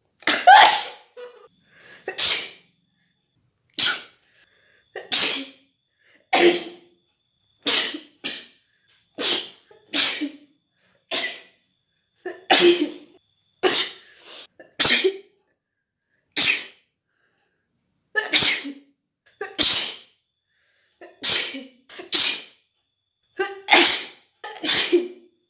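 A woman sneezing over and over, about twenty wet, spraying sneezes in quick succession, roughly one every second, with a short pause about two-thirds of the way through.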